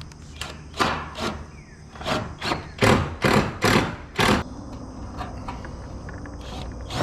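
A quick, irregular run of about nine thuds and clunks on metal roofing panels, bunched in the first four seconds or so, then quieter.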